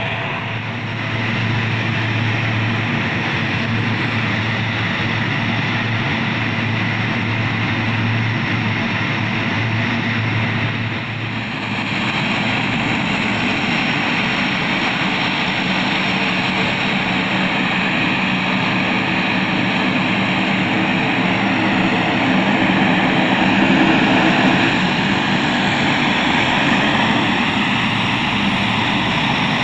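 A C-130 Hercules's four turboprop engines running with a steady low drone under a loud propeller rush, the sound growing a little fuller about twelve seconds in.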